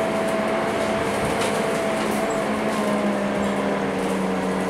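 Scania K230UB bus's rear-mounted five-cylinder diesel engine and drivetrain running under way, heard from inside the passenger cabin. It has a steady whine that eases slightly down in pitch over the first few seconds.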